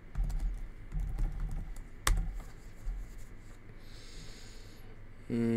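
Typing on a computer keyboard: a run of quick key clicks, with one sharper click about two seconds in. Near the end comes a short, steady, low hum, louder than the typing.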